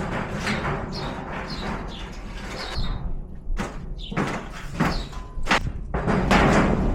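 Sheet-metal shed panels scraping and clattering as they are handled and loaded, with irregular sharp strikes that get louder and denser near the end. A few short high chirps sound now and then.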